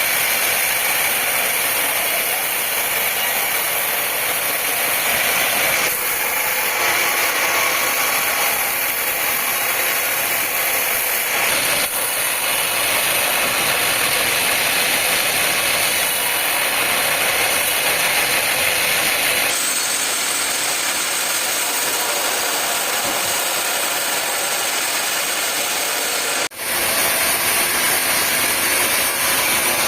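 Steady, high-pitched mechanical noise of sawmill machinery running, changing abruptly several times, with a brief dropout about three-quarters of the way through.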